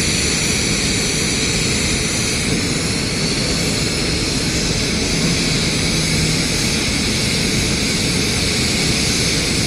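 Steady, loud machine drone with a hiss, unchanging throughout.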